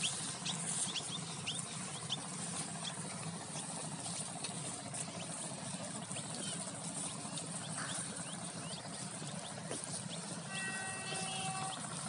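Long-handled wooden hoe dragged through loose, dry soil, making a steady scraping rustle, with many short high chirps scattered over it. About a second and a half before the end, a brief held note of several pitches sounds and stops.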